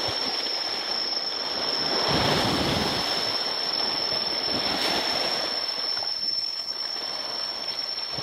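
Small sea waves washing against a rocky shore, the wash swelling about two seconds in and again near five seconds. A steady high-pitched tone runs underneath.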